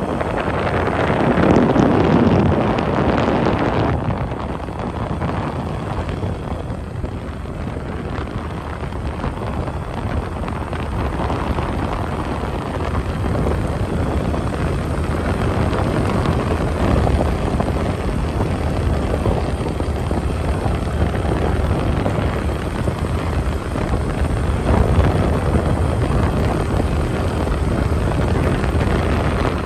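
Steady rush of wind and road noise from a moving vehicle, a little louder in the first few seconds.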